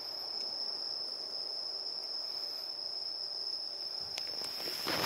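Crickets singing a continuous, steady high-pitched trill, with a few faint clicks near the end.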